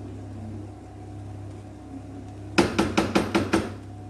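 About six sharp knocks in quick succession, lasting about a second, over a steady low hum.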